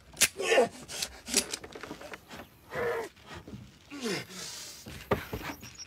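A man groaning and gasping with effort, several short cries that drop in pitch, mixed with sharp knocks and scraping against wood.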